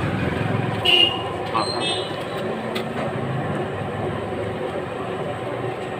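Steady rumbling background noise, with a short high-pitched squeak about a second in.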